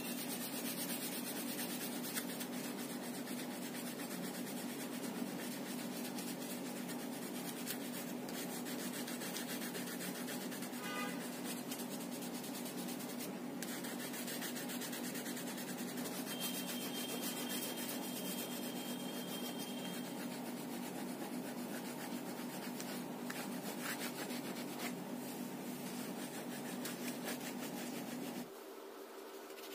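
A wax crayon being rubbed quickly back and forth across paper, a continuous scratchy scribbling as colour is laid over the sheet.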